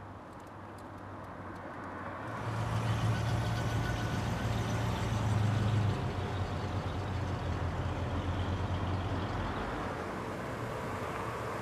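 Car engine running with road noise as the car drives along, swelling about two seconds in and easing a little after about six seconds.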